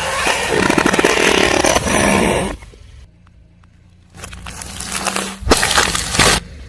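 Car tyre rolling over and crushing crunchy objects: a dense crackling crunch for about two and a half seconds, then after a pause a second burst of crunching with a sharp crack near the end.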